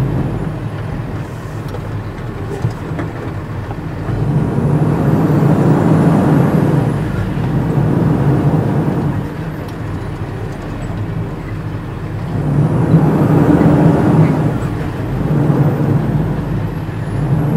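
Heavy truck's engine heard from inside the cab while driving through mud. The engine swells under load about four seconds in and again around thirteen seconds, then eases off.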